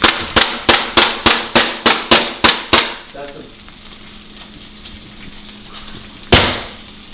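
Tokyo Marui Glock 17 gas-blowback airsoft pistol firing about ten quick shots, three to four a second, each a sharp crack of the slide cycling back. After a pause of a few seconds there is one more sharp crack near the end.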